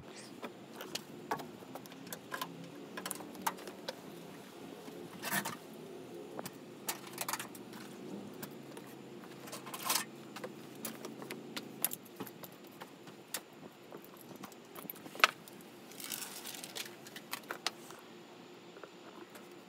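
Scattered crinkles, clicks and light knocks as foil-faced butyl sound-deadening sheets are handled and someone moves about in the bare sheet-metal van, with a few longer rustles, over a low steady hum.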